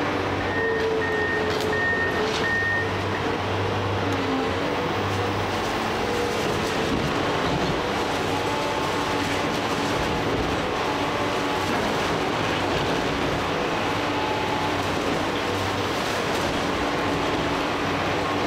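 A Komatsu PC490 heavy-duty excavator's diesel engine and hydraulics running steadily under load on demolition work. Four short high beeps sound in the first few seconds.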